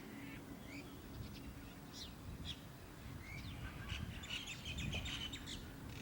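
Small birds chirping in short, scattered calls that become a busy flurry about two-thirds of the way through, over a steady low background rumble.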